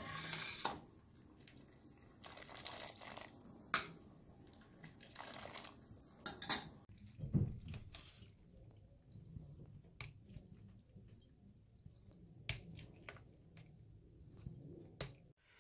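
Wet cooked penne being scooped from a pot of water with a metal strainer spoon and tipped into a plastic colander: scattered splashes and drips of draining water, with sharp clicks of metal against the pot and colander.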